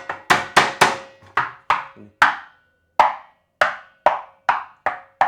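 A series of sharp wooden knocks on a candombe drum, uneven and mostly two or three a second, each dying away quickly, with a faint steady ring under them.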